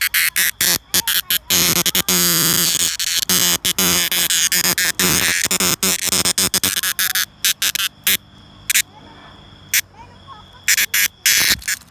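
Cicada calling: a rapid run of sharp clicks builds into a loud continuous buzz lasting several seconds, then breaks back into scattered clicks near the end.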